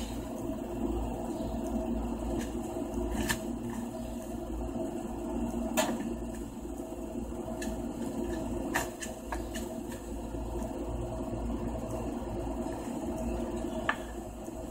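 Steady hum of garage room tone with a few scattered light clicks and knocks as fishing rods and reels are handled, then handling noise near the end as the phone is picked up.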